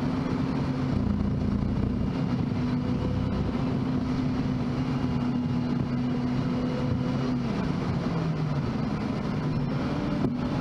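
Car driving, heard from inside the cabin: a steady engine hum over road rumble. The pitch falls about seven seconds in.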